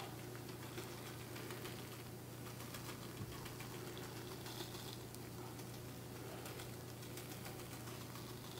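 Coarse kosher salt trickling from a small metal cup onto soft dough in a bowl: a faint, dense patter of tiny irregular ticks.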